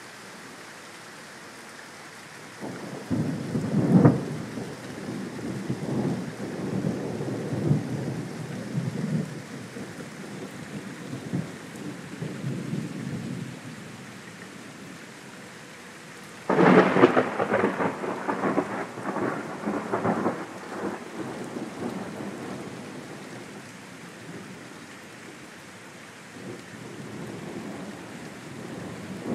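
Thunder over steady rain: a long rolling rumble begins a few seconds in, then a sudden loud crack about halfway through rolls on for several seconds, and a softer rumble comes near the end.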